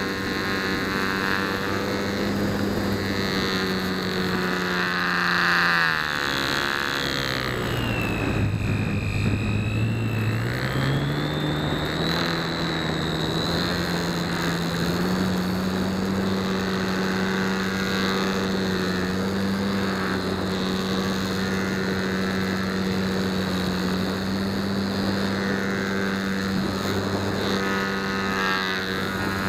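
Electric motor and propeller of a Flite Test Nutball foam-board RC plane, heard from on board: a steady whine over a broad rush of noise. About six seconds in the pitch sinks to roughly half, then climbs back up over the next several seconds and holds steady again.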